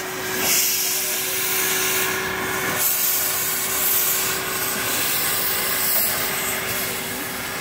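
Steam locomotive Boothbay Railroad No. 11 venting steam: a loud, steady hiss with a faint steady tone underneath.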